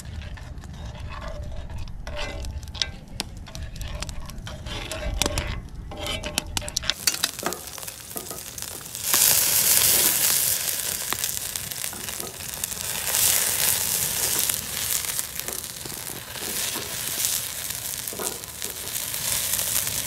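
Food frying in a skillet over a campfire, the pan flaring up in flames and sizzling loudly; the sizzle comes in about halfway through and keeps on. Before it, a low rumble with scattered light clicks.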